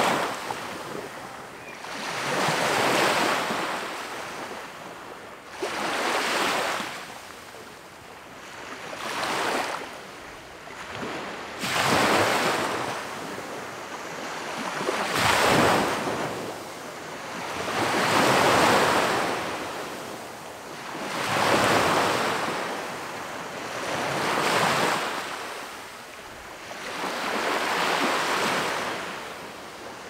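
Small waves breaking and washing up onto the shore, each surge of surf swelling and fading about every three seconds, about ten in all.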